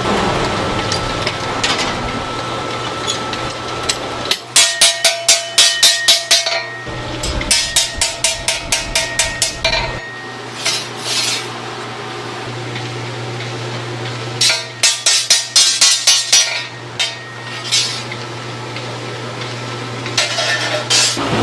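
Metal being struck in quick runs of sharp blows, about four a second, with a faint metallic ring, over a steady low machine hum.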